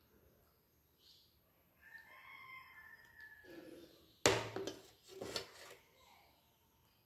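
A rooster crows faintly in the background, one call of about a second and a half. About four seconds in, a glass bowl knocks sharply against a steel plate, followed by a few lighter clinks as curry is poured out of it onto rice.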